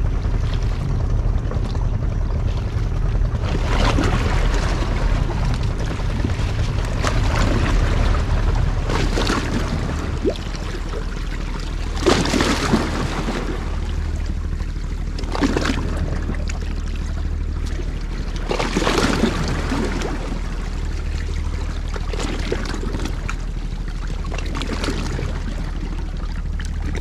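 Small sea waves washing and splashing against the rocks of a breakwater, a swell every three to four seconds, over a steady low rumble.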